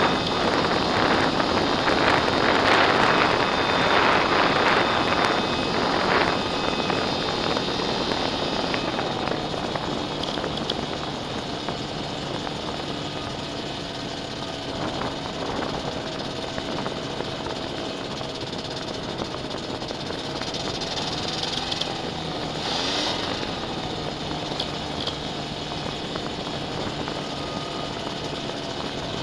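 Wind rushing over a small propeller airplane's wing, fading as the plane slows on the runway, leaving the engine and propeller running steadily at low power while taxiing. The propeller hum rises briefly in pitch about three quarters of the way through.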